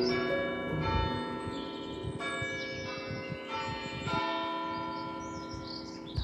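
Church bells ringing: single strokes about a second apart, each ringing on and overlapping the next as it slowly fades.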